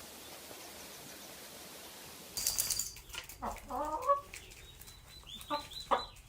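Faint steady hiss, then about two seconds in a chicken starts clucking: several short calls, one of them sliding in pitch.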